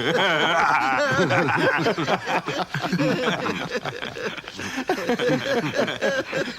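Men laughing hard and at length, more than one voice at once, in rising and falling giggles.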